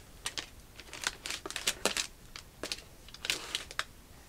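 Clear plastic wrapper crinkling as a cardboard tablet box is handled and lifted off a table: a run of irregular sharp crackles and taps.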